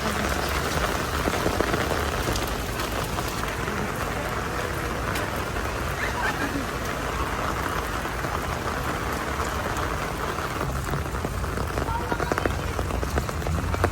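Heavy rain falling, a steady hiss with a dense patter of drops.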